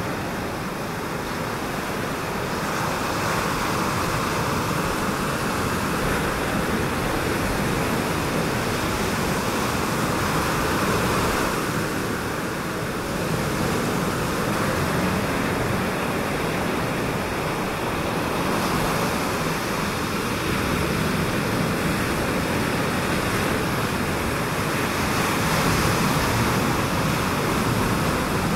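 Ocean surf: a continuous rushing wash of waves that swells and eases every several seconds.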